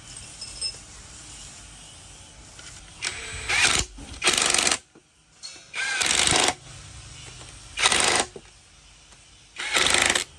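Pneumatic impact wrench rattling in five short bursts, each about half a second, spaced one to two seconds apart, as it works on the bolts of an old Hyundai diesel engine being taken apart.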